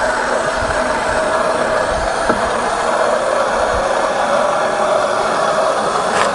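Steady rush of water through a homemade PVC siphon pump driven by garden-hose pressure, pulling water out of a 5-gallon pail and sending it into another pail.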